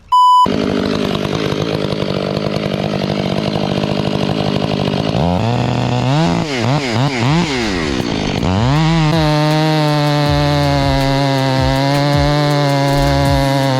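A short beep at the start, then a two-stroke chainsaw running. Its engine revs up and down several times from about five seconds in, then holds steady at high revs.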